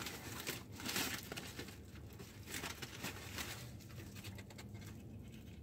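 Burger wrapper crinkling and rustling as it is handled and unwrapped: irregular crackles, busiest in the first second or so and softer after.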